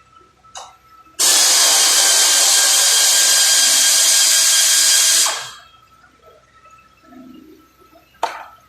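Loud, steady hissing of a workshop power or air tool, starting suddenly about a second in and running for about four seconds before tailing off, followed by a single sharp click near the end.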